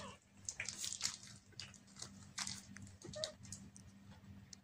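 Persian and Himalayan kittens scuffling as they play-fight: irregular light scratches and taps of paws and claws on a tiled floor and cloth, over a faint steady hum.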